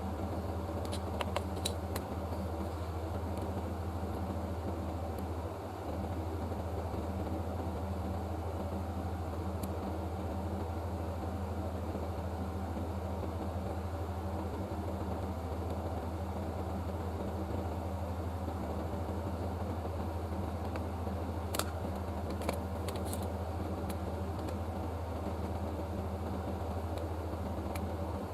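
A steady low mechanical hum, unchanging throughout, with a few faint light clicks about a second in and again after about twenty seconds.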